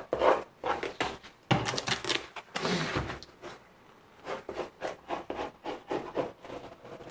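Masking tape rubbed and pressed down by hand over a fursuit ear, then a pencil scratching along the taped pattern in short strokes, about four a second, in the second half.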